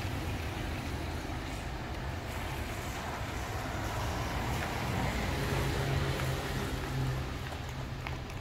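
Street traffic on a wet road: a steady hiss and low rumble, with a car passing about halfway through, its engine and tyres on the wet asphalt rising to the loudest point and then fading.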